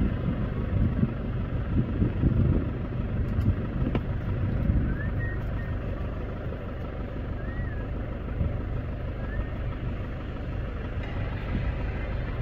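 Distant jet-engine rumble of a Qatar Airways Boeing 777 rolling along the runway after landing, low and uneven, steadier in the second half. Three short chirps sound over it in the middle.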